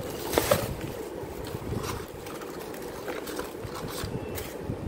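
Tissue paper crinkling and a cardboard shoebox being handled as a sandal is lifted out, with a few light knocks, over a steady low background rumble.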